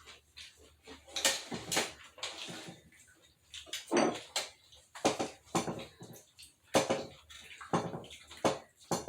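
Knife and fork scraping and clicking on a plate while a steak is cut and eaten, in irregular short strokes.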